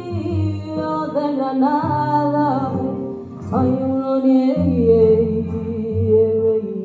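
Flamenco-style Spanish song with a voice singing long, wavering notes over guitar accompaniment, played for a dance.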